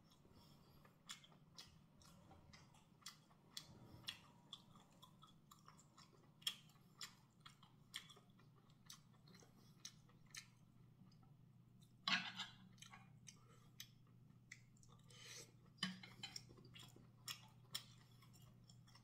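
Near silence: room tone with a faint, even ticking about twice a second over a low steady hum, broken by a brief rustle about twelve seconds in and another around fifteen seconds.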